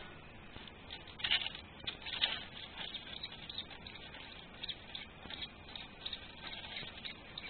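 Savannah monitor feeding on a pinky mouse: faint, irregular scratchy clicks and rustles as it bites and works the mouse into its jaws. A few louder clicks come about a second and two seconds in.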